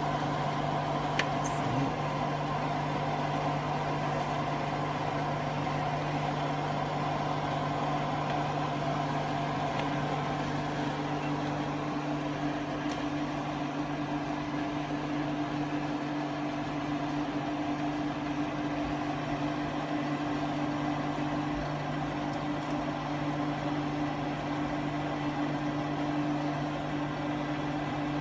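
Steady hum of a kitchen appliance's fan motor running at an even pitch, with a few faint clicks about a second in.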